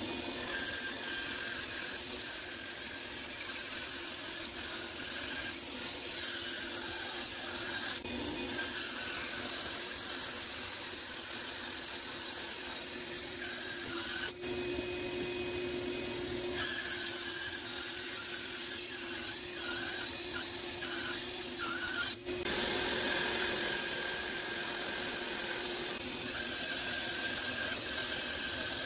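Grizzly G0555X bandsaw running and resawing a thick pecan board: a steady hum of motor and blade with the hiss of the cut, broken off briefly three times.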